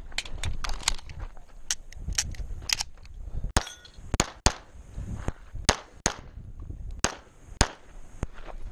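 Pistol being fired in a long string of sharp shots during a stage run, many of them in quick pairs with short gaps between strings.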